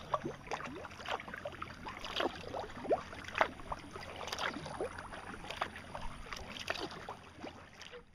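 Kayak paddling: paddle blades dipping and splashing with water dripping off them in quick, irregular plinks, over a steady low rumble.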